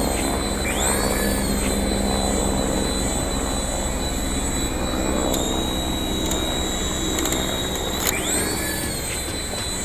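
Toy RC helicopter's small electric rotor motors whining steadily at a high pitch. The whine rises in pitch and settles about a second in and again near the end, as the rotors spin up.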